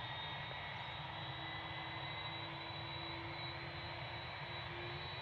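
Airbus A330-200's twin jet engines running at low power as the airliner taxis, a steady high whine over a low rumble.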